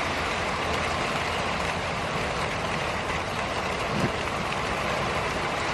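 Heavy rain with wind from a hurricane rain band, an even, steady rushing noise.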